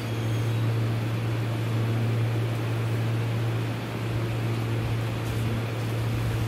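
Steady hiss of oxygen flowing through a Bain's breathing circuit and face mask, over a constant low hum.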